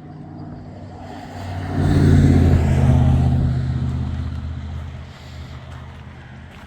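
A motor vehicle's engine close by: a low engine note that grows loud about two seconds in, then fades slowly over the next few seconds, as of a vehicle passing or pulling away.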